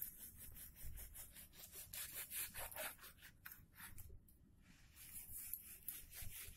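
Kitchen knife sawing through raw buffalo meat on a plastic cutting board: faint, quick repeated strokes, with a short pause about four seconds in.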